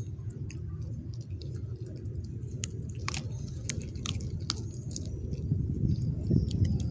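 Beagle chewing a raw chicken breast bone: wet chewing with sharp crunches and cracks of the bone, several close together from about two and a half to four and a half seconds in.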